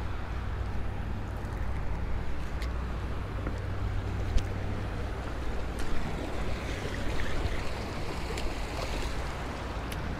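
Steady wash of small waves against the rocks of a granite jetty, with wind rumbling on the microphone. A few light clicks stand out, about two and a half, four and a half and six seconds in.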